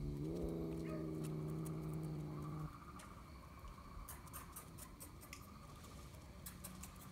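A cat's low, drawn-out growl: one steady call of about two and a half seconds that stops abruptly, followed by faint scattered clicks and taps.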